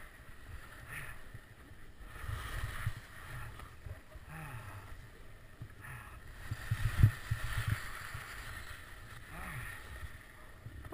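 Skis scraping and swishing over hard, chopped-up moguls in a run of quick turns, each turn a swell of snow noise, over a low rumble of wind on the microphone; the loudest hit comes about seven seconds in.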